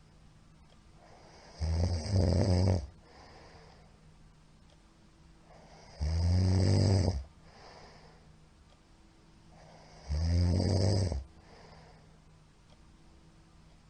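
A middle-aged man snoring loudly in his sleep: three snores, each about a second long, roughly four seconds apart.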